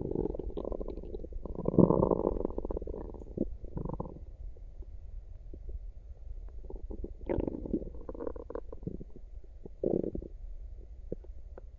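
Human stomach gurgling in irregular bursts, the sound of gas and fluid moving through the gut. The loudest gurgle comes about two seconds in, with shorter ones around four, seven to eight and ten seconds in, over a steady low hum.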